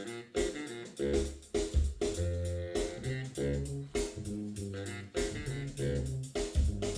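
Instrumental music with plucked guitar and bass guitar, played back from a cassette on a Kenwood KX-660HX stereo cassette deck.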